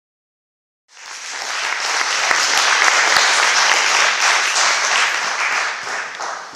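Audience applauding: many hands clapping, coming in abruptly about a second in and tapering off near the end.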